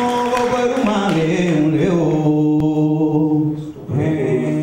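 A man's voice singing an unaccompanied chant in long held notes that step down in pitch, with a short break before a last held note.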